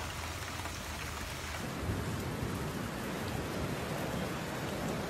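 Steady heavy rain. About one and a half seconds in the sound changes and fills out with a deep rumble under the rain.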